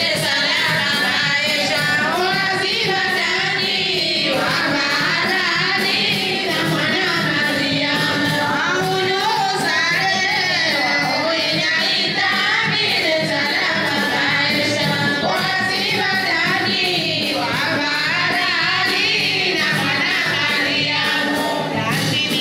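Music with women singing over a steady beat.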